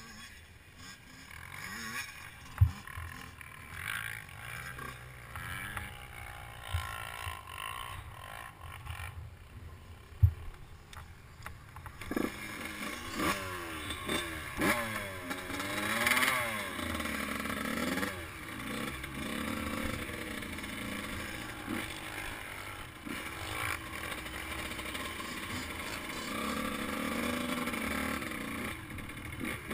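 Suzuki RM85 two-stroke dirt bike engine, running at low revs with two sharp knocks in the first part. From about halfway it gets louder, revving up and down repeatedly as the bike is ridden.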